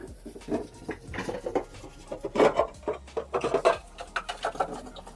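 Dishes and food containers clattering as they are handled: a run of irregular knocks and clinks.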